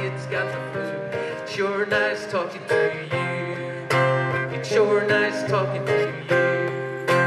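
Live band playing an instrumental passage: strummed acoustic guitar with drums and keyboard, a wavering melody line over them, and cymbal or drum strikes every second or so.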